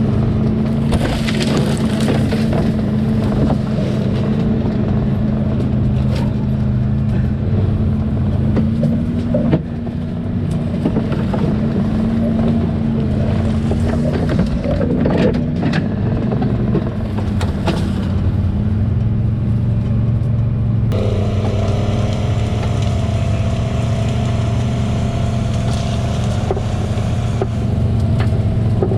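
Side-by-side UTV engine running steadily under load, with a few sharp knocks along the way; the engine note changes abruptly about 21 seconds in.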